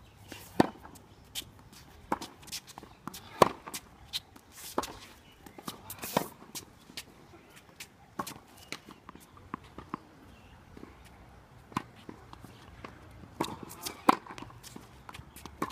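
A tennis rally: sharp pops of the ball off racket strings and off the hard court, a second or more apart, with footsteps and shoe scuffs on the court between shots.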